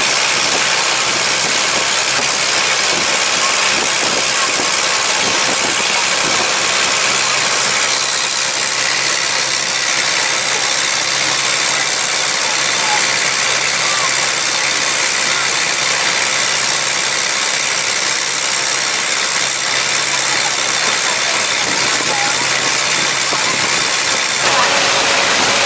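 An engine running steadily under a loud, even hiss, with a slight change in the sound about eight seconds in.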